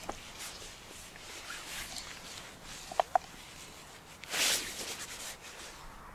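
Rustling of padded jackets and small handling noises as two people shift while seated. Two short, sharp, high squeaks come close together about three seconds in, and a louder rustle follows about four and a half seconds in.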